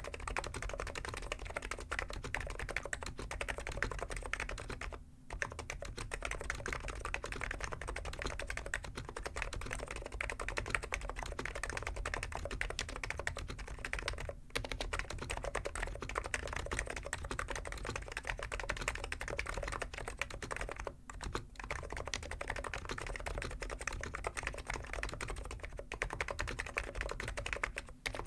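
Continuous fast typing on a Hansung GK893B keyboard with stock, unlubed 50g electro-capacitive (Topre-style) switches: a dense run of keystrokes broken by a few brief pauses.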